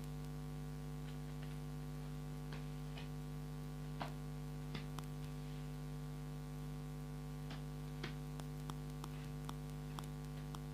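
Steady electrical mains hum, a buzzing drone with several overtones, the recording fault that the uploader apologises for. Over it come a dozen faint, scattered light clicks from tarot cards being handled and drawn.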